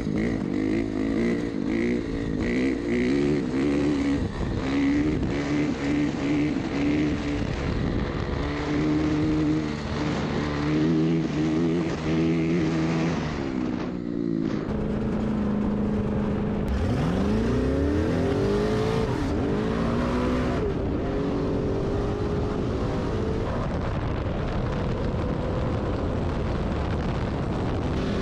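Off-road vehicle engine running hard, revving up and down. Past the halfway point an engine accelerates hard, its pitch sweeping up again and again as it climbs through the gears.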